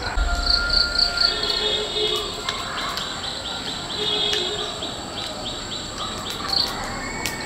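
Rural outdoor ambience: a steady high-pitched insect trill, likely crickets, with birds calling over it. The bird calls include a quick run of short repeated falling notes in the middle.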